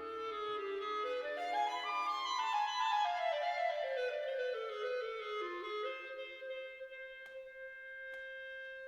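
Background music: a clarinet-like woodwind melody that climbs in steps, then steps back down and ends on a long held note.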